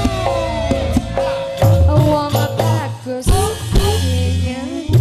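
Live band music: an electric guitar plays a lead line with bent notes and long held notes over drums, bass and hand percussion.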